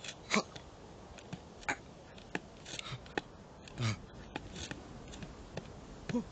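Scattered light clicks and taps of a sheep's hooves shifting on a rock, with a short falling low sound a little after the middle.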